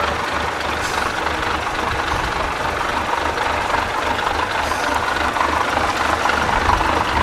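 Trial truck's diesel engine running at low revs as the truck crawls down a steep bank into a muddy pit, with a steady low throb, getting a little louder near the end.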